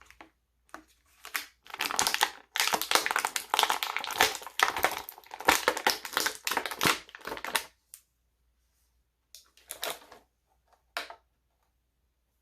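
Action-figure packaging crinkling and crackling as it is handled and crumpled, steadily for about six seconds, then a few short rustles.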